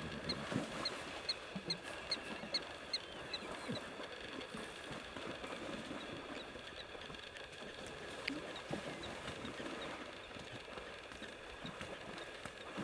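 Wild mustangs wallowing and rolling in a mud hole: wet mud sloshing and splashing irregularly under their bodies and hooves. Short high chirps repeat about four times a second over the first few seconds and come back more faintly in the middle.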